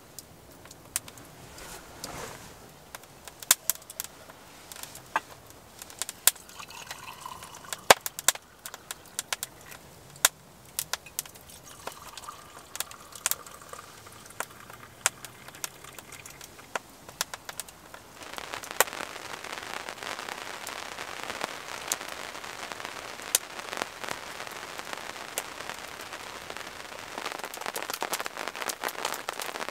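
Wood fire crackling with sharp pops throughout, and tea pouring from a kettle into an enamel mug around the middle. From about two-thirds of the way through, a dense steady hiss of rain joins the crackling.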